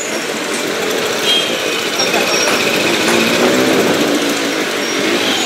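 Small motorcycle running along a town street while carrying its riders, with the noise of surrounding motorbike and scooter traffic.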